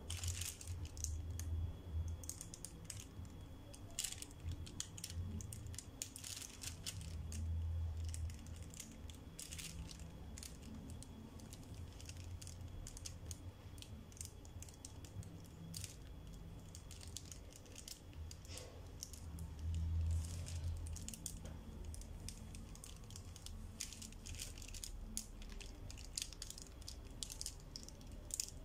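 Pencil tracing firmly over lines on tracing paper laid on carbon paper: irregular short scratchy strokes, with a few low bumps.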